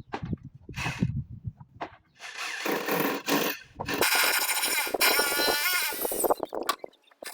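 Electric drill with an 8 mm bit drilling holes for wall plugs, running in two long stretches after a couple of seconds of low thumping and handling noise.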